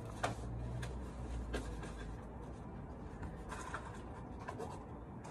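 Pen writing on paper forms laid on a counter: soft scratching of the pen, with a few light ticks as it touches down.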